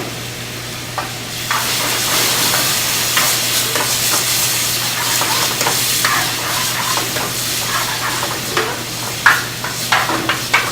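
Chicken and gravy sizzling in a hot pan while being stirred, with the utensil knocking and scraping against the pan. The sizzle swells about a second and a half in, and several sharper knocks come near the end.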